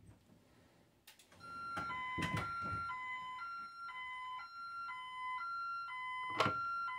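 Ademco Vista-40 burglar alarm going off after being tripped: a two-tone warble that starts about a second and a half in, alternating a higher and a lower tone about once a second. A few clicks, with a sharp one near the end.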